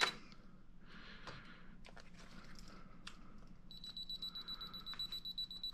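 A few faint handling clicks, then from about two-thirds of the way in a Canon EOS 5D Mark II DSLR gives a high-pitched electronic beep that holds for about two seconds.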